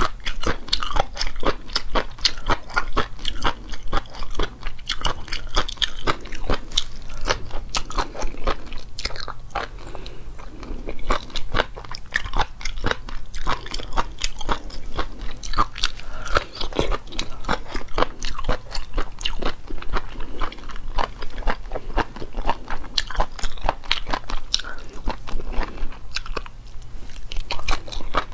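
A person chewing and biting a crisp, crunchy food close to the microphone, with dense, rapid crunches.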